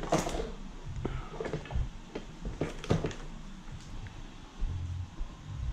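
Handling noise of a wiring loom being picked up and carried: scattered clicks and knocks of connectors and cable, rustling, and a few low thumps.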